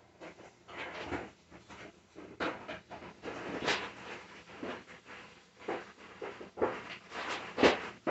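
Irregular rustling and crinkling handling sounds from preparing bread stuffing, with a sharper, louder stroke near the end.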